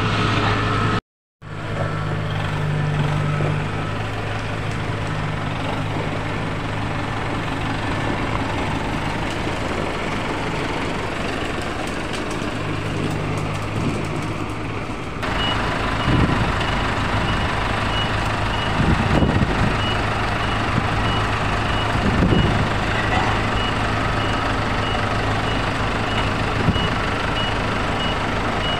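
Diesel farm machinery engines running steadily: first a tractor's engine at idle, then, after a cut about halfway, a Kubota DC-70 combine harvester's diesel engine running with its reversing alarm beeping in a steady repeating pattern.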